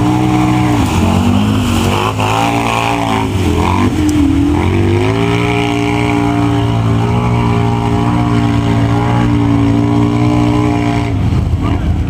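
ATV engine running, its speed rising and falling for the first few seconds, then holding steady until it drops off near the end.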